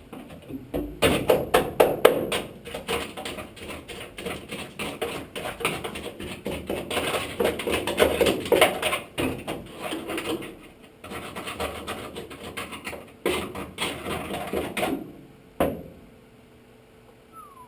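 Rapid, irregular tapping and clattering: a dense run of small knocks that pauses briefly about eleven seconds in and ends with one sharp knock about fifteen seconds in.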